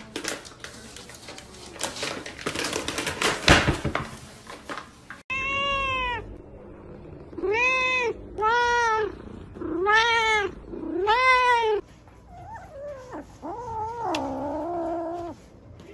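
Rustling and clattering with a few sharp knocks, then a cat meowing five times in a row, each call rising and falling. Near the end come lower, wavering cat calls.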